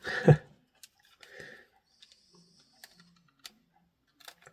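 A few faint, scattered clicks and taps of the small plastic case of a Sony ICF-SW100 pocket radio being handled and pried apart at its snap-in clips.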